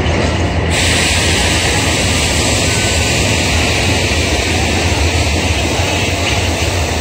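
Loud, steady rushing and buffeting noise: air stirred up in the wake of a departing passenger train, blowing on the microphone, with no wheel rhythm left. About a second in it suddenly turns brighter and hissier.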